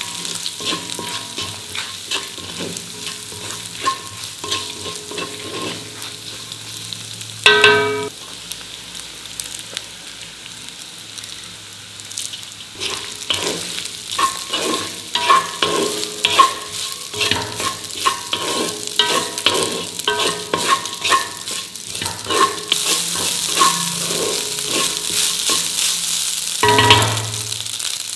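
Sizzling in a wok as onions, cashews, curry leaves and red chillies fry in oil, with a spatula stirring and scraping against the pan. Later, cooked rice and peanuts are stirred through, and the scraping strokes come thicker and louder. Two louder metallic clangs ring out, about eight seconds in and near the end.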